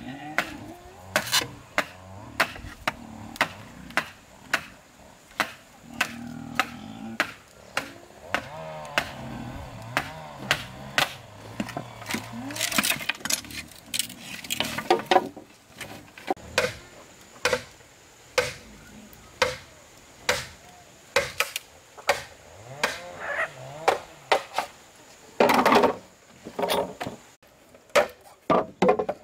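Hand-tool strikes on building work: a long run of sharp knocks at a fairly even pace, one to two a second.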